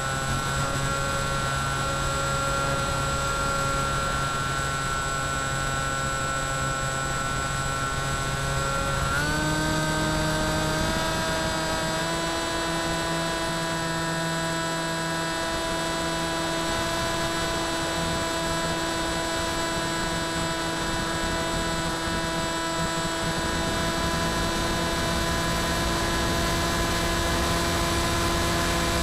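The electric motor and propeller of an FX-61 Phantom flying wing, heard from its onboard camera in flight: a steady whine over a rush of air. The pitch steps up about nine seconds in as the throttle is raised, and then holds steady.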